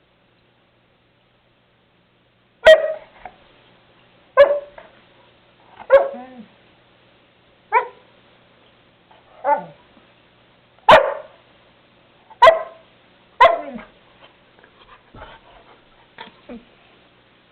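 Pet dog barking in single barks about every second and a half, about eight loud ones starting nearly three seconds in, then a few softer sounds near the end.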